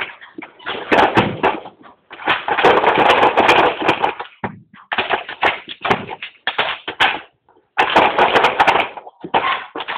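Hard plastic dog puzzle toy being pawed and nosed by a dog, clattering and scraping on a concrete floor in repeated bursts with short pauses between them.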